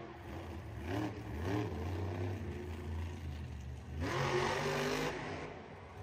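Monster truck's supercharged V8 revving in short rising blips, then a longer, louder rev about four seconds in as the truck drives up a dirt ramp.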